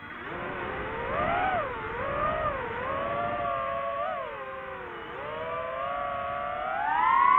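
FPV quadcopter's motors and propellers whining, the pitch gliding up and down with the throttle, dipping about five seconds in and then climbing to a louder, higher whine near the end.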